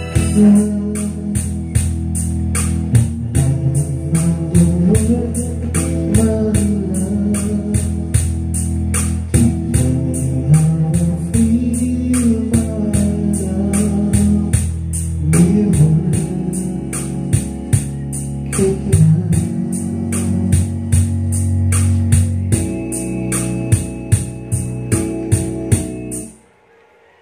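Karaoke backing track playing from an HDT Premier 98 mini karaoke player: sustained chords and a melody line over a steady beat. The music stops abruptly near the end.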